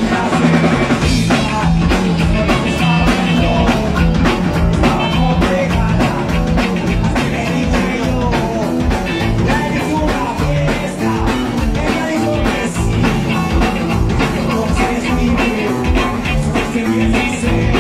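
Live rock band playing: electric guitar, bass guitar and drum kit keeping a steady beat.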